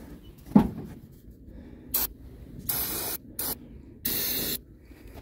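Aerosol can of starter fluid sprayed in four hissing bursts, two of them about half a second long, soaking rags stuffed in the intake of a cold Detroit Diesel 6V53 to prime it for a cold start. A single low thump about half a second in is the loudest sound.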